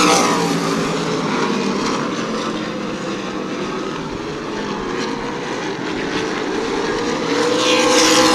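Super late model stock car V8 engines running at racing speed around the short track. The sound swells near the start and again near the end as cars go by, with a dip in between.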